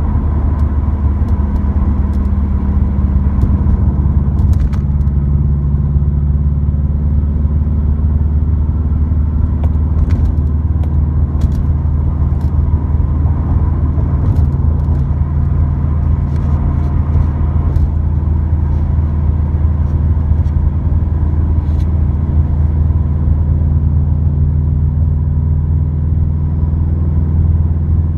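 Subaru WRX with an Invidia N1 dual exhaust heard from inside the cabin while cruising: a steady low exhaust drone at constant speed. Scattered faint clicks run over it.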